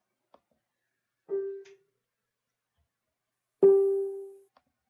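Two piano-like notes of the same pitch: a short one just over a second in, then a louder one about two seconds later that rings out for nearly a second.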